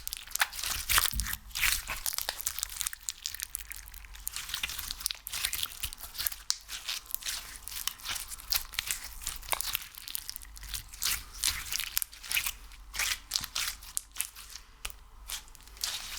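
Close-miked sticky crackling and tearing sounds of tacky ASMR material (slime or wax) being pressed and pulled by hand: rapid, irregular clicks and pops.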